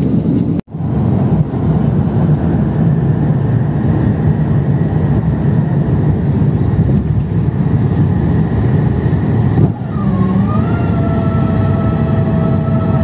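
Airbus A350-1000 cabin noise: a steady rush of airflow and engine sound. About ten seconds in, a whine rises in pitch and then holds steady.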